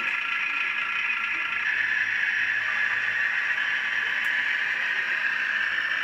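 HO-scale brass model of a KiHa 82 series diesel express train running slowly along the track, with a steady whirring hum.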